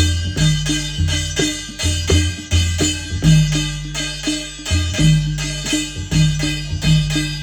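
Adivasi folk percussion: a mandal barrel drum and a dhulgya hand drum beat a steady rhythm, with a struck brass thali plate ringing over the drums.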